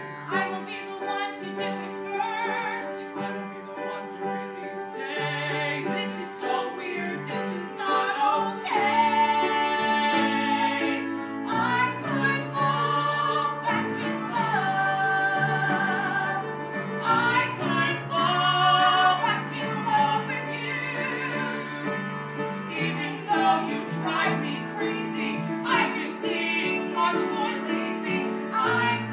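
Live singing of a contemporary musical-theatre song to piano accompaniment, with long held notes sung with vibrato, loudest around the middle.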